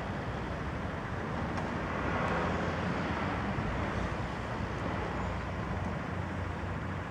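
Outdoor ambience: a steady rumbling hiss with no distinct events, swelling a little about two seconds in.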